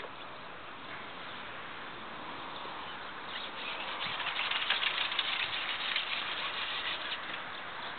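Crackling rustle of reed leaves brushing against the camera microphone, rising about three seconds in and easing off near the end, over a steady faint outdoor hiss.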